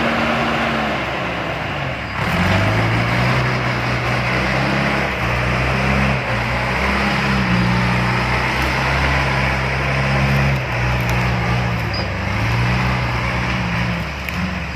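Heavy-equipment diesel engine working under load: its pitch sags over the first two seconds, climbs sharply about two seconds in, then stays high with small rises and falls.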